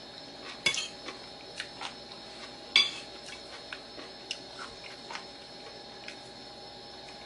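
Metal spoon clinking and scraping against a ceramic bowl while eating: two loud clinks about two seconds apart, followed by lighter taps.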